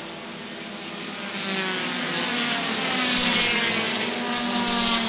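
Engines of several compact touring race cars running at speed around a short oval as the pack comes past, getting louder toward the middle and easing slightly near the end.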